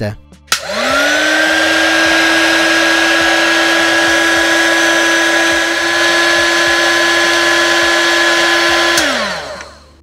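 Heat gun switched on with a click about half a second in. Its fan spins up to a steady whine over rushing hot air, blowing to shrink heat-shrink tubing over the drone's receiver wiring. Near the end it is switched off and the whine drops away as the fan winds down.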